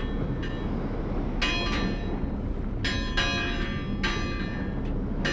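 Seaport ambience with boats: a steady low rumble under bell-like metallic clangs that ring on briefly, about one every second.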